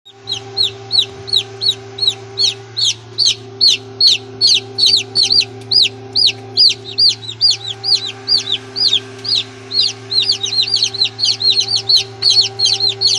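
Newly hatched Australorp chicks peeping: a quick, unbroken run of short high peeps, about four a second, over a steady low hum.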